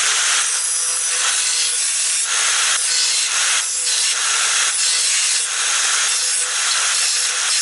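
Angle grinder with a thin cut-off wheel running and cutting into steel: a steady motor whine under a harsh grinding hiss that swells and eases as the wheel bites.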